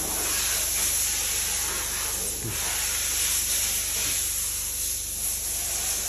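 A steady, even hiss with a low hum beneath it.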